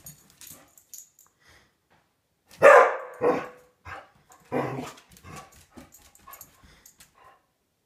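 A dog barking at a cat: a run of short barks, the loudest about three seconds in, then quieter ones trailing off.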